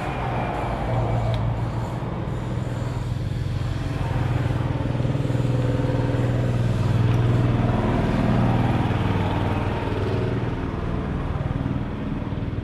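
Small grass-cutter engine running at a steady speed.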